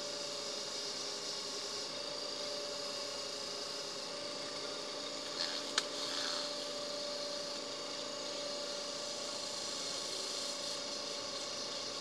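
Small metal lathe running with a steady hum while a brass part spinning in its chuck is sanded with fine 2000-grit sandpaper. One light click about six seconds in.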